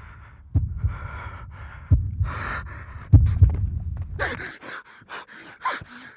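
A man panting and gasping hard as he strains to pull his shirt free from a shut car door. The breaths come in heavy bursts with a low rumble at first, then turn into a quick run of short, sharp gasps for the last couple of seconds.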